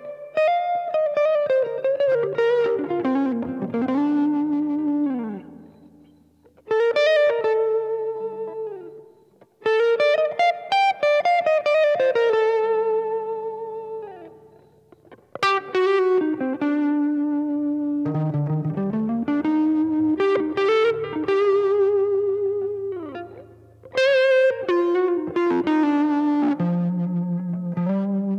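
Electric guitar played through effects: single-note melodic phrases with string bends and vibrato, each struck and left to ring out and fade before the next begins.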